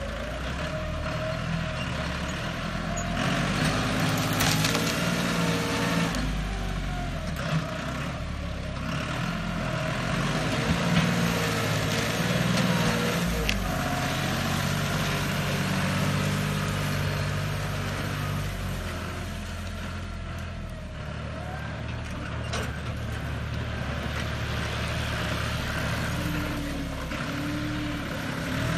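John Deere tractor's diesel engine working hard as its front blade pushes against a tree stump, the engine speed rising and falling several times under the load. A few sharp cracks stand out above the engine.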